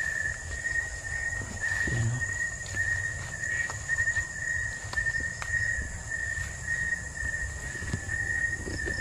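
Night insect chorus: a steady, pulsing mid-pitched trill with a fainter, higher steady buzz above it, over low rustling and knocks of movement.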